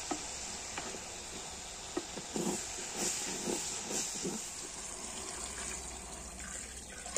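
An aluminium pot of khichdi boiling with a steady hiss while a metal ladle scrapes and knocks against it several times; near the end coconut milk is poured into the pot.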